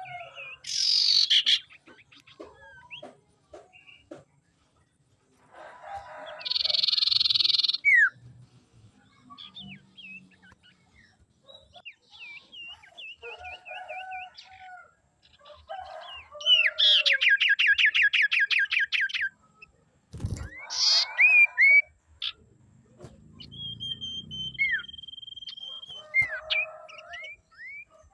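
Common iora calling in a varied sequence: harsh, rasping bursts, quick slurred whistles, a fast trill of evenly repeated notes lasting about two and a half seconds, and a single long, level whistle near the end.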